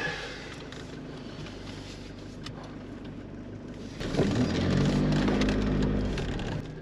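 Jeep driving on a road: a low steady road rumble, then about four seconds in the engine and wind noise get much louder and a steady engine drone is heard for about two seconds before it eases off near the end.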